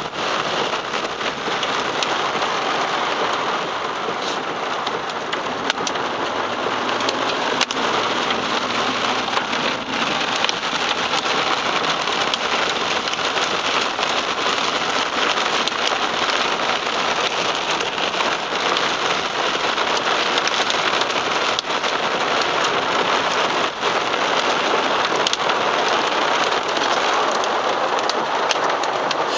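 Heavy rain pelting a car's windshield and roof, heard from inside the car: a steady, dense patter of drop impacts.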